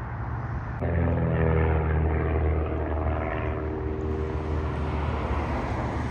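Propeller engines of small aerobatic display planes droning overhead. The engine note comes in suddenly about a second in, dips slightly in pitch as they pass, then fades.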